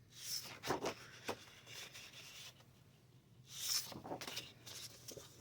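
Paper game charts and sheets rustling and sliding against each other as they are handled, in several short brushes with one louder swish about three and a half seconds in.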